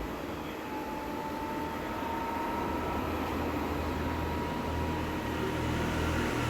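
Eureka Forbes Robo LVAC Voice Pro robot vacuum cleaner running: a steady whir of its motors with a low hum and a faint whine that rises slightly in pitch, getting a little louder towards the end.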